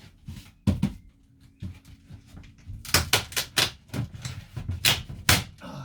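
Hard wood being broken apart by hand: a string of sharp cracks and knocks, one loud one near the start, then coming thick and fast from about three seconds in.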